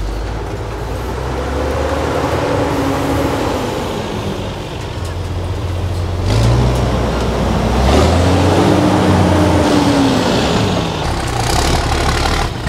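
Heavy all-wheel-drive truck engine working hard over rough off-road terrain, its revs rising and falling twice as the driver feeds in throttle.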